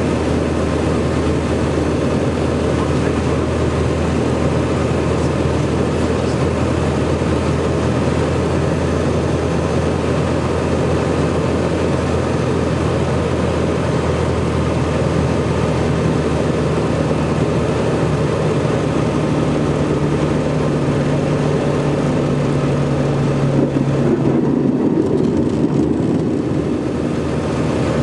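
Jabiru LSA 55 light aircraft's engine and propeller running, heard from inside the cockpit with air noise, during approach and landing. A higher, steady engine note comes in past the middle and holds for several seconds, then the sound changes abruptly.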